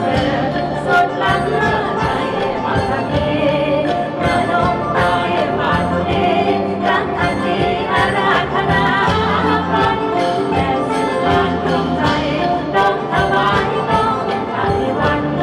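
Isan pong lang folk band playing lively music live, with sustained melodic instruments over a steady beat of percussion.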